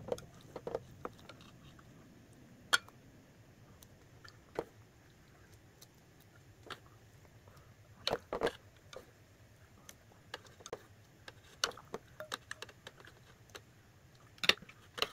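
Chopsticks clicking and tapping against a thin metal ramen pot and its lid as noodles are lifted out, in scattered single taps with a few quick clusters.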